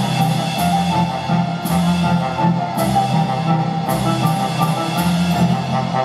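Recorded German folk dance music with a steady beat and a bright crash about once a second, played over stage loudspeakers.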